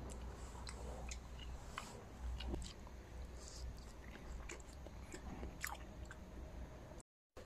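A person biting into and chewing soft, ripe papaya flesh close to the microphone: faint, with many small wet clicks and smacks. The sound cuts out to silence for a moment about seven seconds in.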